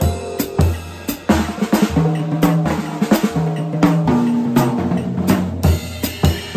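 Acoustic drum kit played with sticks: snare, tom, bass drum and cymbal hits along with a swing jazz karaoke backing track, with a short lull about a second in.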